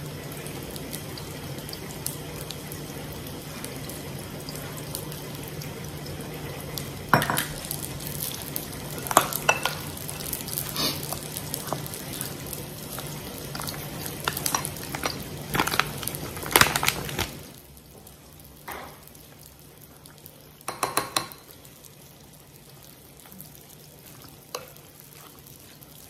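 Bakwan (vegetable fritter) batter being stirred and mixed in a bowl, the utensil clinking and knocking against the bowl now and then, over a steady kitchen hiss and hum. The hiss and hum stop about two-thirds of the way through, leaving a few more isolated knocks.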